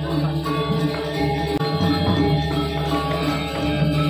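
Balinese gamelan playing: layered bronze metallophone and gong tones ringing over drums and cymbals, steady throughout.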